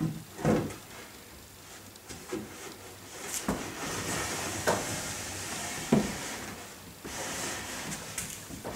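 Workshop handling noise: several knocks and thumps, as of wooden boards or panels being set down and fitted, with a scraping rub between them from about three seconds in.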